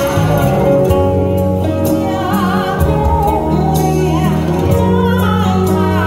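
A woman singing a Chinese popular song with vibrato into a microphone, amplified over instrumental accompaniment through stage speakers.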